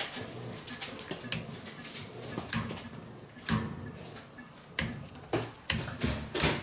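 Metal hand scaler scraping and chipping heavy tartar off a dog's teeth by hand force, not ultrasonically: irregular sharp scrapes and clicks, coming more often in the second half.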